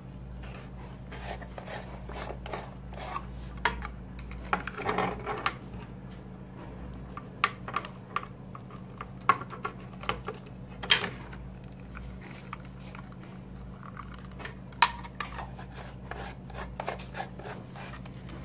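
Scattered clicks, taps and rubbing of small hard objects being handled, over a steady low hum.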